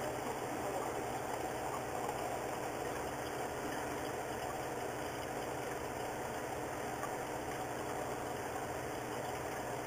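Steady mechanical hum with faint tones, continuous and even, with no distinct knocks or clicks.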